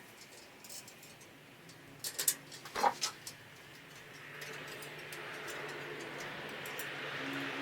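Metal wrench clicking and clinking against a bicycle wheel hub's axle nut, a few separate clicks and one ringing clink in the first three seconds. From about four seconds in, a steady hiss with a low hum rises slowly.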